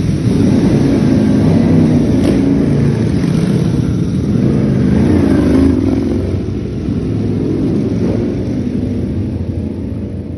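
Ducati V4 R's V4 engine running hard through an aftermarket racing exhaust, its pitch wavering up and down. It stays loud for about six seconds, then slowly fades away.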